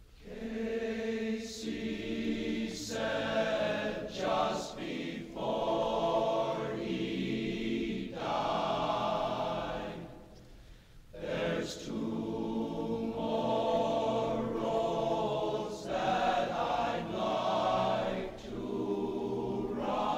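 A choir singing in sustained chords, phrase after phrase, with a short break about ten seconds in; an old 1960 LP recording.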